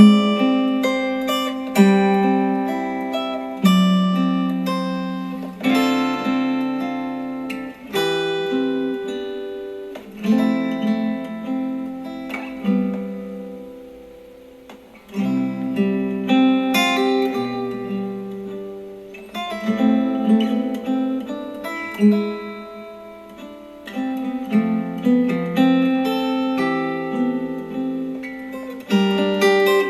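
Acoustic guitar music played through a Star Wars Millennium Falcon Bluetooth speaker: plucked and strummed notes that ring out and die away, with a short lull about halfway through.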